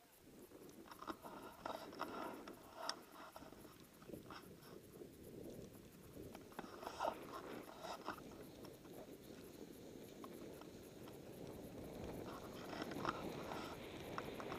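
Soft crunching and hissing of powder snow under a rider sliding downhill, growing louder toward the end, with scattered small clicks and knocks.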